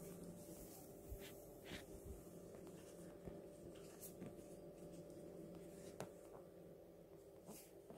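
Near silence: quiet room tone with a faint steady hum, broken by a few soft clicks and rubs.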